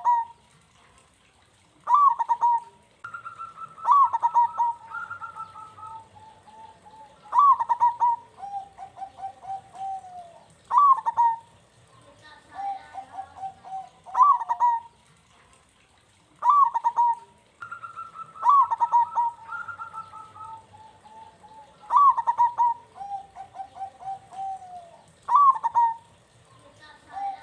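Zebra dove (perkutut) cooing: a phrase every two to three seconds, each a sharp high note dropping into a rolling, burbling trill, with some phrases overlapping.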